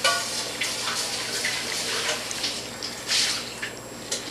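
Water running from a kitchen tap: a steady rushing hiss that starts suddenly and eases off near the end.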